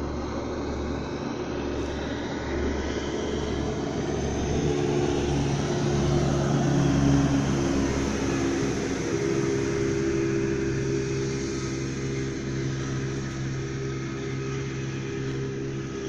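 Motorboat engines running on a river with a steady drone that swells about halfway through as a speeding boat passes close by, then holds steady.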